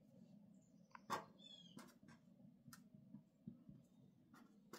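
Near silence, with faint felt-tip marker strokes on paper as letters and bond lines are drawn, and one brief high squeak about a second and a half in.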